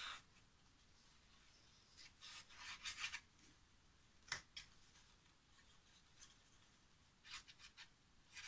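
Faint rubbing and scratching of a plastic glue bottle's nozzle drawn across cardboard as lines of liquid glue are squeezed out, in two short spells about two and seven seconds in. A single sharp click about four seconds in.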